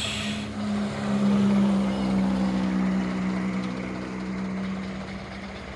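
Diesel truck engine running with a steady low drone, loudest about a second in, then slowly fading.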